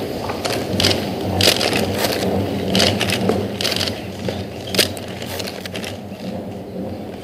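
A quick, irregular series of sharp clicks and rustles, thickest in the first five seconds, over a steady low hum and a dull background rumble.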